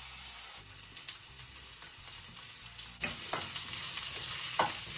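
Chopped red onions sizzling in hot oil in a stainless steel pan, with a steady hiss. A spoon stirring them scrapes and knocks against the pan a few times, sharpest about three seconds in and again near the end.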